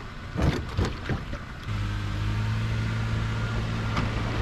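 A few knocks and a clatter as the boat comes off its trailer. Then, about one and a half seconds in, a pickup truck's engine starts running steadily as the truck pulls the trailer up the ramp.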